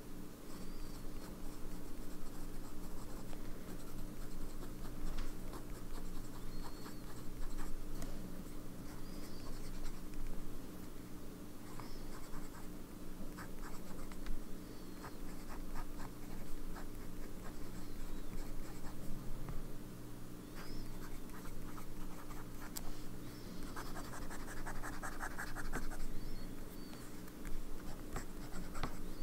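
Steel nib of a Sailor 1911S fountain pen with a zoom nib scratching across Maruman Mnemosyne notebook paper as words and a zigzag line are written by hand.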